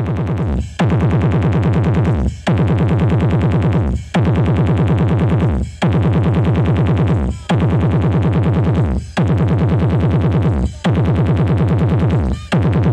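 A bass-heavy electronic dance track played loud through a mobile sound system's speakers. It runs in short repeated phrases about a second and a half long, with a brief drop between each.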